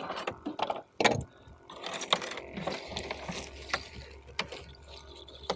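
Fishing rods and tackle being handled: irregular clicks and light knocks, the sharpest about a second in.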